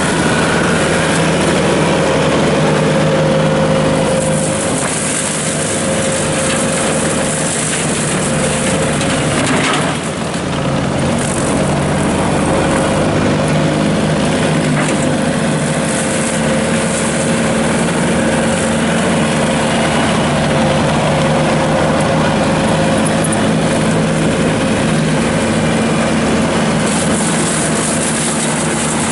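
Skid steer running steadily under load with a 72-inch MTL brush cutter, its 20–30 GPM Star piston hydraulic motor spinning the three-blade mulching rotor as it mows brush, a steady whine over the engine's drone.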